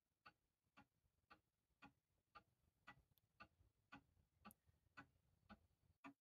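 Pendulum movement of a 1940s Kienzle box regulator wall clock ticking faintly and evenly, about two ticks a second.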